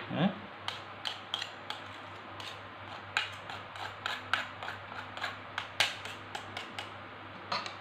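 Hand-held stainless steel potato ricer clicking and clinking, its metal handles and basket knocking together as boiled potato is squeezed through it. Irregular sharp clicks come two or three a second.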